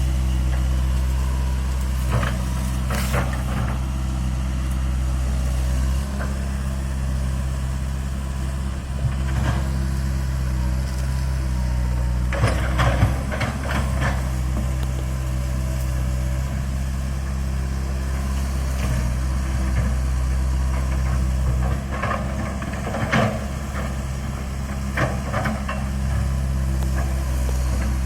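Komatsu PC160-8LC hydraulic excavator's diesel engine running steadily under work, with scattered knocks and clatter from the bucket and soil, in clusters a few seconds in, around the middle and again later.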